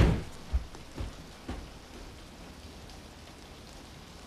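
Steady rain falling, an even hiss. A sharp thump right at the start, then a few softer knocks over the next second and a half.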